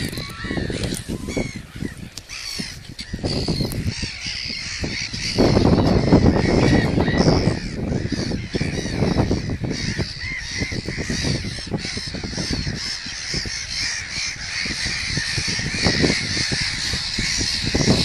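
A large nesting colony of gulls calling without pause: a dense chorus of many overlapping harsh cries. Wind buffets the microphone in gusts underneath.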